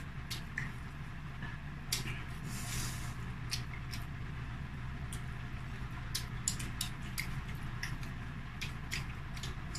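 Eating sounds: scattered small clicks and smacks of chewing and of fingers working food from plates, over a steady low hum.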